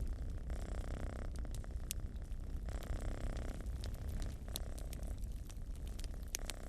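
Domestic cat purring, the purr swelling and easing in a cycle of about two seconds with each breath, over a wood fire in a fireplace crackling with scattered sharp pops.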